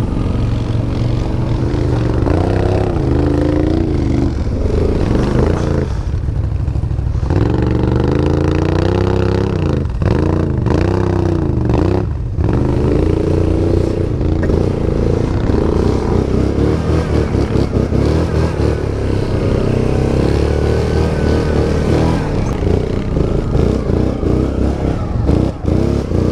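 ATV engines running and being revved, the pitch rising and falling several times in the first half, then running more steadily.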